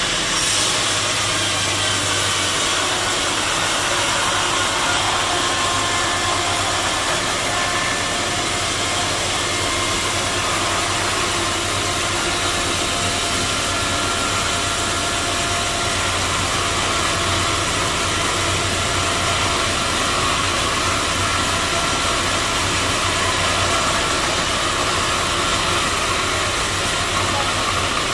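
Sawmill machinery running steadily with a constant hum and whine, without any break.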